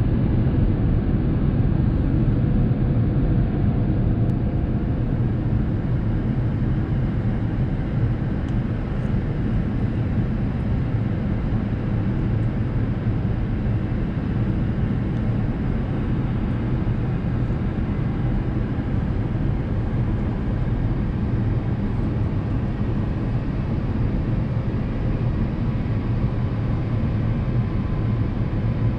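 Steady cabin noise inside an Airbus A350-900 airliner descending on approach: a low, even drone of airflow and the Rolls-Royce Trent XWB engines, with faint steady tones running through it.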